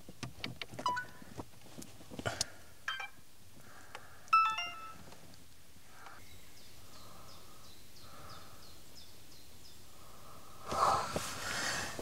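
A few sharp clicks followed by short electronic beeps, then a faint steady hiss with light regular ticking.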